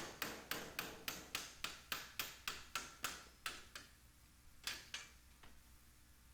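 Light hammer taps, rapid and even at about four a second, knocking out a window's center strip. The taps fade out partway through, and one louder knock follows near the end.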